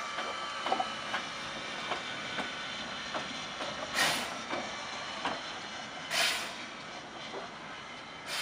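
Steam tank locomotive rolling slowly past with a steady hiss of steam, loud exhaust chuffs about every two seconds, and light clicks and knocks in between.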